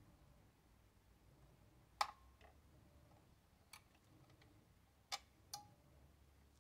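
Five faint, sharp clicks at uneven spacing, the first about two seconds in, from the Dual 1216 automatic turntable's mechanism and controls while it is stopped.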